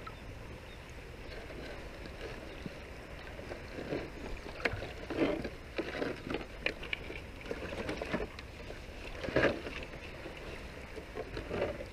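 Wet set net being hauled hand over hand out of shallow water into a plastic tub: water splashing and dripping off the mesh in irregular bursts, loudest about five and nine seconds in.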